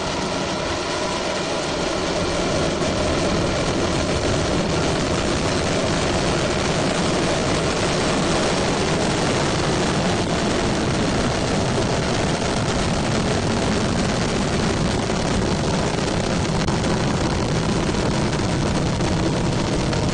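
Long March 2D rocket engines at liftoff and climb-out: a loud, steady rush of rocket exhaust noise with deep rumble, unbroken throughout.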